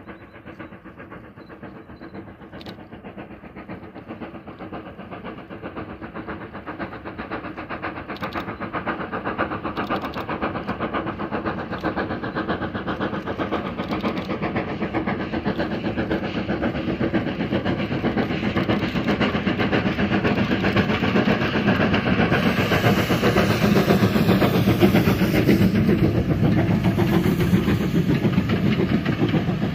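Steam locomotive chuffing as it hauls a passenger train, growing steadily louder as it approaches. It is loudest as it passes close by about three-quarters of the way through, and then the coaches roll past.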